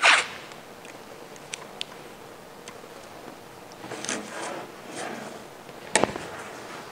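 Blue painter's tape being pulled off the roll in short peels, at the start and again about four seconds in, with a few light clicks and a sharp tap near the end.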